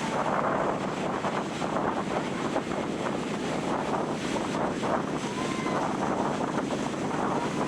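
Ocean surf washing on a sandy beach, with wind buffeting the microphone.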